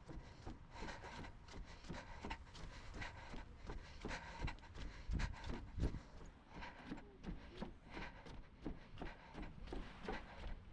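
A runner's footsteps striking wooden boardwalk planks at an even jogging cadence of about three strides a second, with the runner's breathing.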